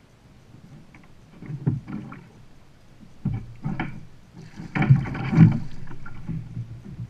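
A hooked gar thrashing at the surface beside a kayak: irregular splashes, building to the loudest flurry about five seconds in.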